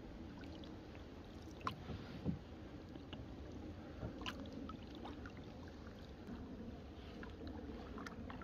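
Canoe being paddled quietly through still water: soft paddle strokes and drips, with a few faint clicks and light knocks.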